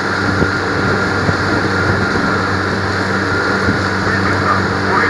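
Motorboat engine running steadily under way, a constant hum, with rushing water and wind noise over it.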